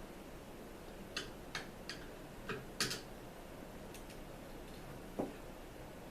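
About seven light, irregular clicks and taps of a Phillips screwdriver working a tight rifle-stock screw.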